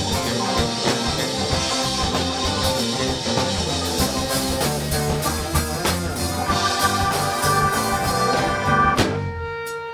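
Live rock band playing an instrumental passage on electric guitars, bass, keyboards and drum kit. About nine seconds in the band stops short, leaving a single held note ringing.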